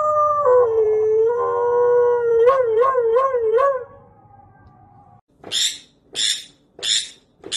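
Husky howling: one long howl that steps down in pitch, then wavers up and down before it fades out. A little over a second after it ends, a run of short harsh bursts starts, evenly spaced about two-thirds of a second apart.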